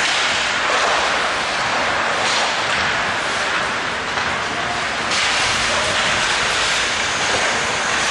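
Ice hockey skate blades scraping and carving across the rink ice, a steady hiss that swells now and then with the skating.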